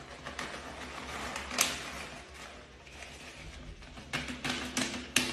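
A plastic shredded-cheese bag crinkling and rustling as it is shaken to pour the cheese out, with a sharp crackle about a second and a half in and a run of quick crackles near the end.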